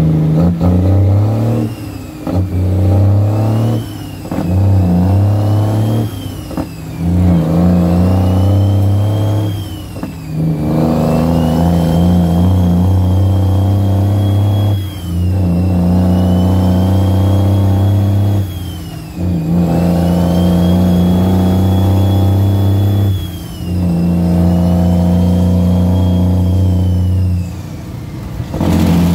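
International truck's turbocharged Cummins L10 diesel pulling up through the gears of a 13-speed transmission: engine speed climbs in each gear and dips briefly at each of several shifts. A high turbo whistle rises and falls with the engine.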